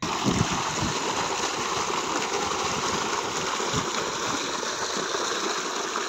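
Irrigation water flowing steadily into a cotton field, a continuous even rushing.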